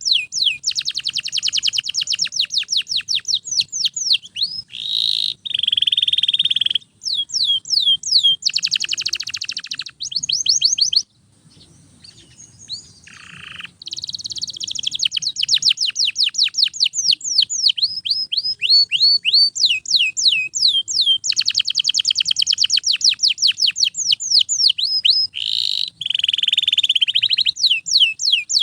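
Domestic canary singing loudly without stopping: strings of quick sweeping notes alternate with fast buzzy trills, with a short pause near the middle.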